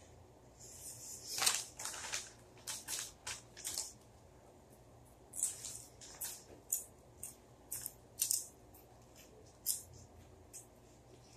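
Crinkling and crunching of a bag of ghost pepper potato chips: short, irregular crackly bursts in two spells, the first about a second in and the second about five seconds in.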